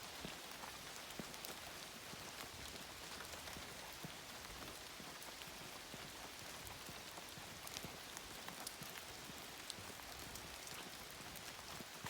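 Rain falling in woodland: a faint, steady hiss with scattered drops ticking close by.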